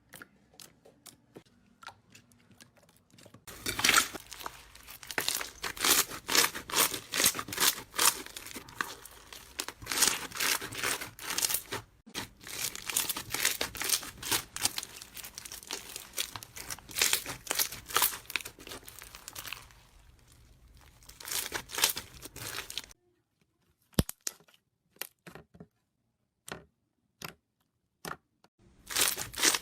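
Slime being squeezed and stretched by hand: dense, sticky crackles and little pops. About two-thirds of the way through it thins to a few scattered pops, then the crackling picks up again near the end.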